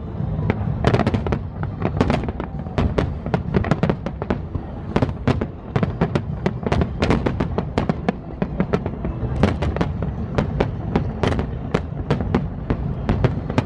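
Fireworks display at its height: a rapid, unbroken barrage of bangs and crackles, several shell bursts a second over a continuous low rumble.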